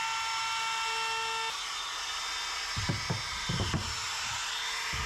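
A steady mechanical hum that shifts in tone about a second and a half in, with a handful of dull knocks of wood being handled about three seconds in and one more near the end.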